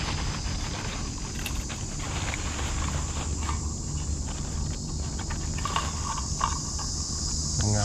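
Dry fallen leaves rustling and clicking as a wild mushroom is cut loose with a machete and picked by hand, over a steady high-pitched insect drone.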